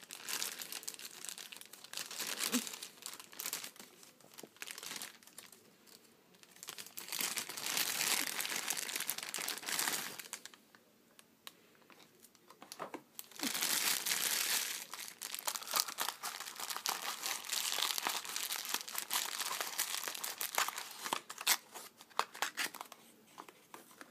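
Thin clear plastic bag crinkling and rustling in bursts as a small die-cast toy is unwrapped from it. There is a quieter pause about halfway through.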